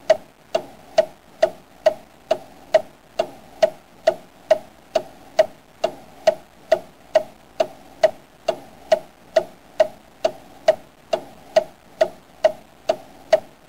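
Clock ticking steadily, a little over two sharp ticks a second.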